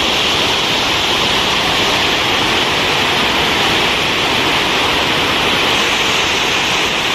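Muddy floodwater of a swollen river rushing and pouring over a concrete edge: a loud, steady rush with no let-up.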